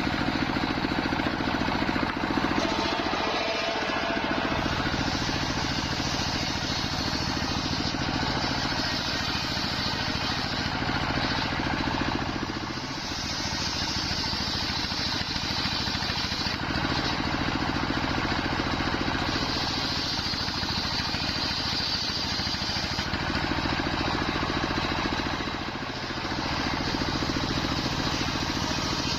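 Large circular sawmill blade running steadily and sawing through nyampoh wood, over a continuous machine hum. The sound eases off briefly twice, about thirteen seconds apart.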